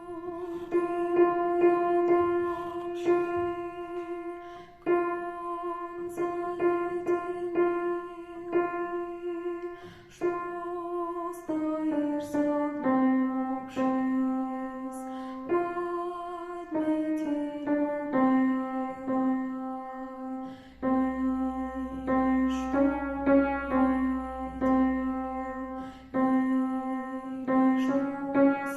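Slow music: a melody of long held notes, each lasting several seconds, over a steady piano accompaniment.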